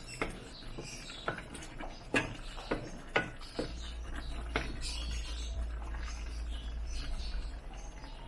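A wooden spatula stirring a thick stew in an aluminium pot, knocking and scraping against the pot's side at irregular moments, over a low steady hum.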